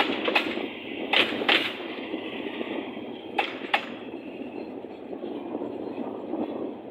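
Passenger train rolling past, its wheels clacking over rail joints in pairs, clack-clack, twice. The rumble of the cars slowly fades as the train moves away.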